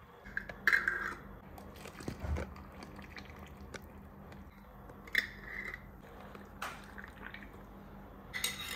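Boiling water poured from a jug into glass jars packed with sliced zucchini, trickling and splashing, with a few brief knocks from the jars and lids.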